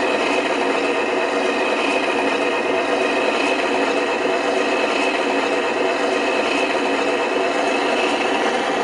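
Steady whirring mechanical noise with a faint high whine, from a 1:14 scale RC Volvo F88 truck running on its stand.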